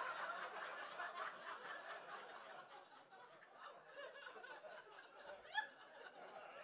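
Audience laughing at a joke, loudest at the start and dying away gradually. One voice rises briefly above the laughter about five and a half seconds in.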